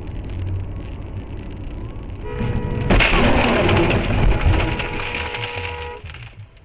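Dashcam audio of a road collision: steady road rumble, then a held horn from about two seconds in, and a sudden loud crash a moment later followed by a few seconds of crunching noise. The crash noise and the horn cut off together about six seconds in.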